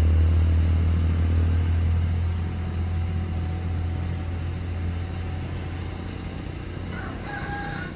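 Diesel engine of a heavy self-loader truck running as the truck pulls away, its low hum fading steadily. A rooster crows near the end.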